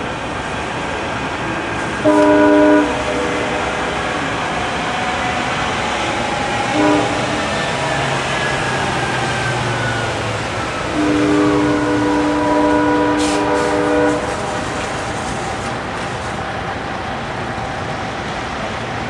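Amtrak passenger train horn sounding a chord: a short blast about two seconds in, a brief toot near seven seconds, then a long blast of about three seconds. Under it runs the steady rumble of the moving train.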